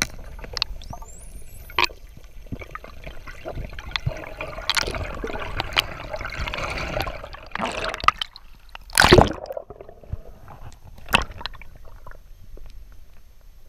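Water rushing and gurgling as heard by an underwater camera, with a few sharp clicks and a louder whoosh about nine seconds in.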